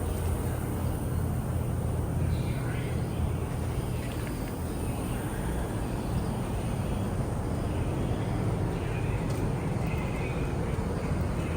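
Outdoor background noise: a steady low rumble with faint, scattered high chirps, like distant birds.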